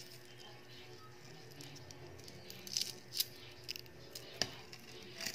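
Hard-boiled egg being peeled by hand: the shell crackling, with a few sharp clicks in the second half.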